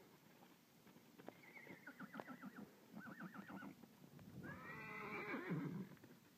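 A horse whinnying in a run of quavering calls, the longest and loudest near the end, with faint hoofbeats on sand.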